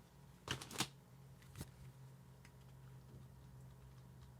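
Brief handling sounds of cardboard and paper packaging from a collector's-edition disc box: a couple of quick rustles about half a second in and a light tap a second later, over a faint steady low hum.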